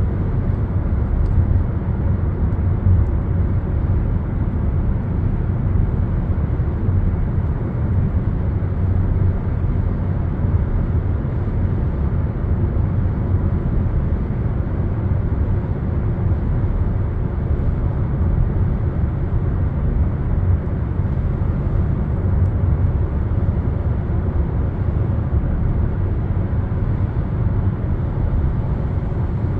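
Steady low rumble of a moving vehicle, even throughout with no speech or music.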